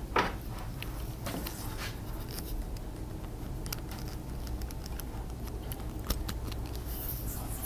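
Scattered light clicks and taps of hands handling things, with one louder brief brushing sound near the start, over a steady low hum.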